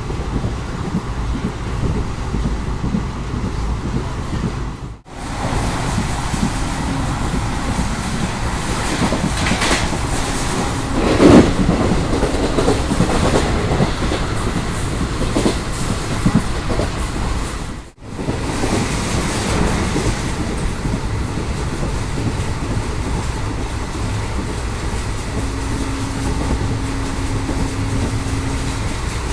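Passenger train running at speed on the track, a steady rumble and rattle of wheels on rails with a loud clatter about eleven seconds in and a faint steady tone near the end. The sound cuts out briefly twice.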